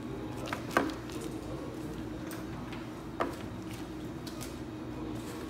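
Cardboard box and paper packaging being handled on a table, with a few light knocks and taps: the sharpest comes just under a second in and another about three seconds in, over a steady background hum.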